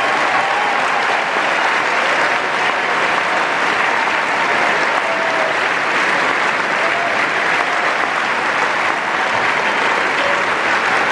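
Large concert crowd applauding steadily, with a few short voices calling out above the clapping.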